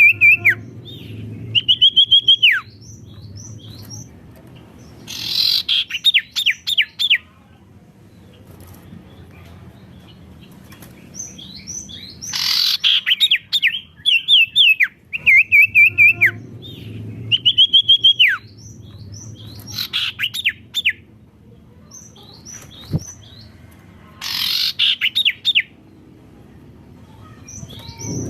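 A sirtu songbird singing loudly in repeated bursts every few seconds. Each phrase is a high wavering trill or swept note, often ending in a quick run of falling chirps. A faint low hum runs underneath at times.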